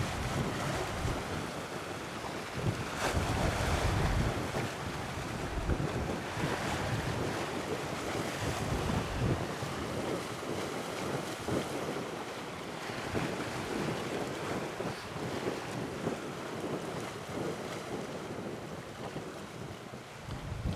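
Sea waves washing, with wind buffeting the microphone in low gusts that are heaviest in the first half.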